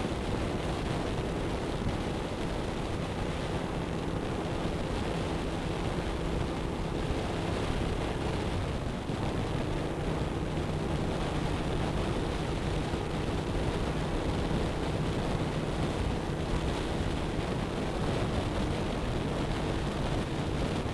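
Wind rushing over the camera microphone at highway speed, with the steady drone of a 2007 Suzuki SV1000S's V-twin engine at a constant cruise underneath.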